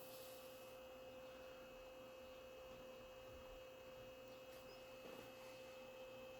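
Near silence with a faint, steady electronic whine at a single pitch from the amplifier test bench, over a low hiss.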